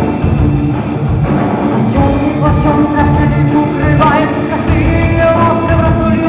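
Folk-rock band playing live and loud: drum kit, electric and acoustic guitars and violin.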